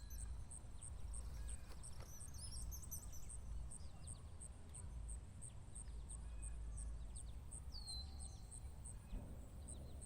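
Small birds chirping faintly, with a clear falling whistle about eight seconds in, over a low outdoor rumble. A high, evenly repeated ticking note runs along with them, a few times a second.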